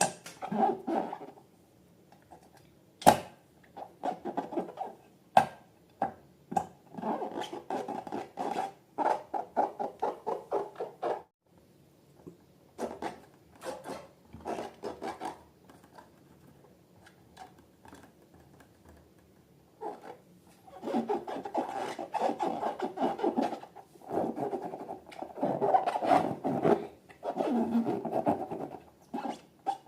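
Hands working slime and balloons: irregular bursts of crackly rubbing and scratching, with a few sharp clicks in the first several seconds and a long quieter stretch in the middle.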